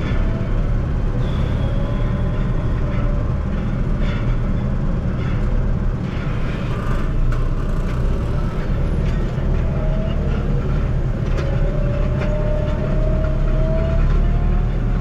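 Tractor engine running steadily under load, pulling a Hatzenbichler Vertikator tine harrow with seeder through the soil, with scattered light rattles. A faint thin whine rises slightly near the end.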